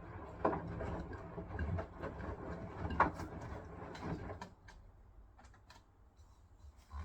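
Hisense washing machine on its wool cycle, the drum turning gently with water and wet laundry sloshing for about four and a half seconds. The drum then pauses, leaving a low hum and a few light clicks.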